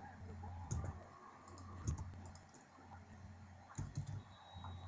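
A few scattered clicks of a computer mouse and keyboard, spaced a second or two apart, over a steady low electrical hum.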